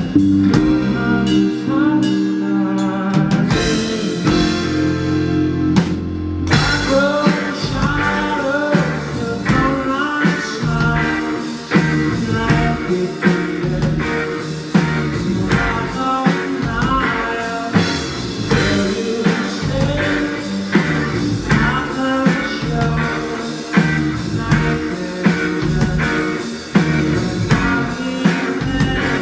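Live rock band playing with electric guitars, bass, drums and a male lead vocal. A sustained chord rings for the first few seconds, then the full band comes in about six seconds in with a steady drum beat.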